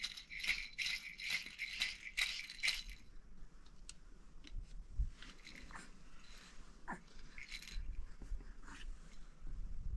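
A baby's rattle toy being shaken quickly and evenly, about four shakes a second for the first three seconds, then a few scattered light clicks.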